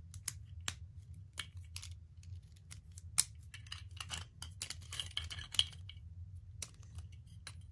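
Small plastic parts of a Hasbro Quad Drive Vanish Fafnir F7 Beyblade being handled and snapped together: scattered light clicks and rattles, one sharper click about three seconds in, then a busy stretch of clicking and scraping.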